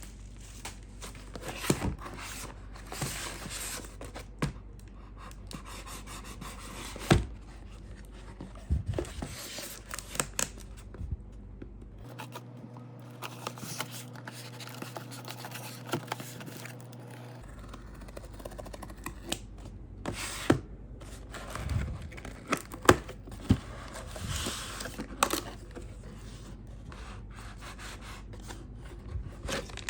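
Product packaging being handled and opened by hand: plastic crinkling, tearing and scraping, with irregular sharp clicks and knocks, the loudest a little after the middle.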